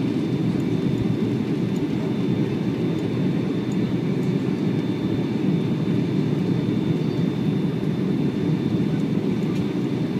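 Steady cabin noise inside a Boeing 757-236 airliner on final approach: engine and airflow rumble with the landing gear down, and a faint steady high whine on top.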